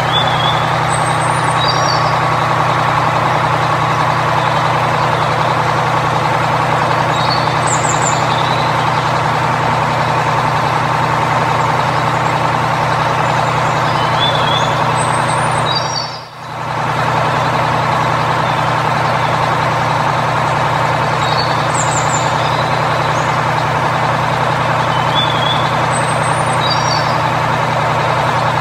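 Heavy truck's diesel engine running steadily at idle, with a brief drop out a little past halfway. Short high chirps recur every few seconds over it.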